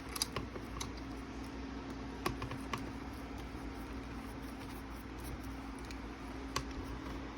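A few scattered light clicks and taps of small plastic parts and a screwdriver being handled, over a steady low hum.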